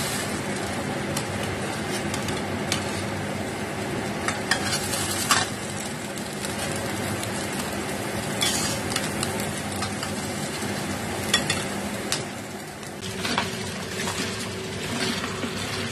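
Food sizzling in oil in a stainless steel frying pan, with scattered sharp pops and clicks. About 13 seconds in, this gives way to tap water running over cut napa cabbage that is being rinsed by hand in a bowl.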